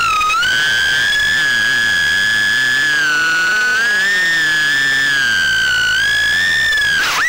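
Mobula 6 HD tiny whoop drone's motors and propellers whining in flight, heard through its onboard camera. A high steady whine whose pitch drifts up and down with throttle, with a sudden sharp dip and a short rough burst near the end.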